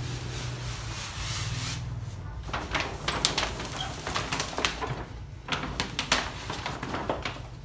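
Large sheet of adhesive vinyl wrap film crinkling and crackling in irregular sharp bursts as it is handled and wetted. A spray hiss from a hand pump sprayer stops about two seconds in.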